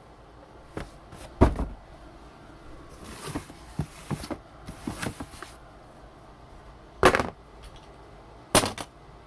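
Packaging being handled for an unboxing: a few sharp knocks and thuds, the loudest early on at about a second and a half, with a stretch of rustling and scraping in the middle.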